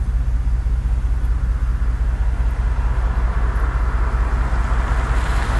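Vehicle engine idling with a steady low rumble.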